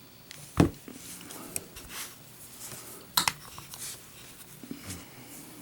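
A few light metallic clicks and knocks from a copper Zippo lighter being handled. There is a sharper knock about half a second in and a quick double click about three seconds in.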